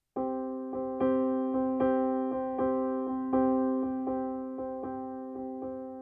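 Background music on a piano-like keyboard, notes struck again and again at an even pace, each fading before the next.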